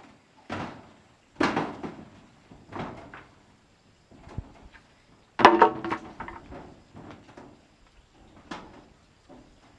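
A series of irregular knocks and clunks, like hard objects being handled and set down, about six in all. The loudest comes about halfway through and rings briefly.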